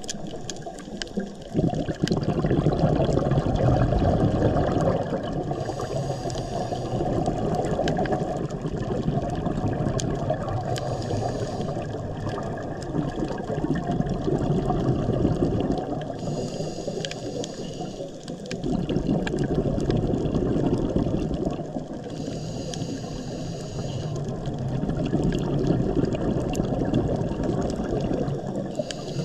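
A scuba diver breathing through a regulator underwater: a short hiss on each inhale, then a longer low rush of exhaled bubbles, repeating about every six seconds.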